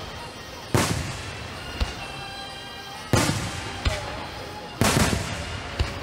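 Aerial fireworks shells bursting: three loud booms, each fading off in a rumbling echo, with a smaller, sharper crack following each one about a second later.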